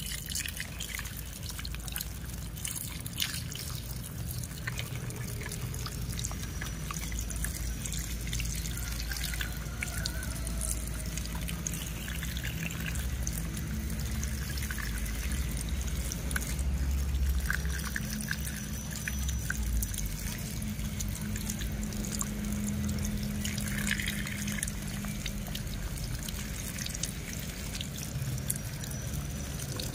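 A thin stream of water pouring and splashing over a small plastic toy truck held in a hand, trickling and dripping off it, over a low steady hum.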